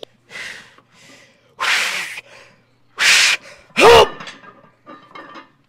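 A man's sharp, forceful breaths: one soft and then three loud rushes of air, the loudest ending in a short strained grunt about four seconds in, as he psyches up for a heavy lift. A few faint clicks near the end.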